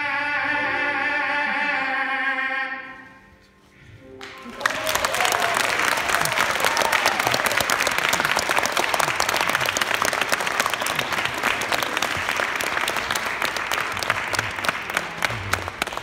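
A man's voice holding the final sung note of the song, fading out about three seconds in. An audience then breaks into applause, which thins out near the end.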